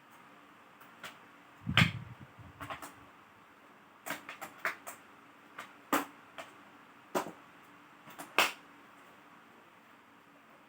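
Sharp clicks and knocks from handling the laptop's plastic and metal parts and tools on a work surface during disassembly. The loudest is a knock with a low thud about two seconds in, followed by a quick cluster of clicks and then single clicks every second or so.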